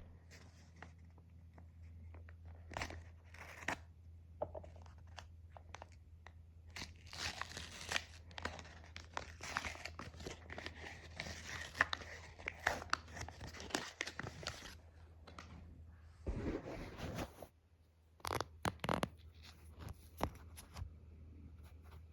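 Plastic toy packaging being torn open and crinkled in irregular crackling bursts, busiest midway, over a steady low hum.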